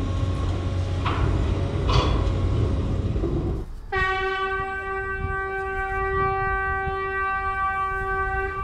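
A steady low rumble, then a horn sounds one long, steady note for about four and a half seconds, starting about four seconds in: the warning signal given on a blasting site before an explosive demolition.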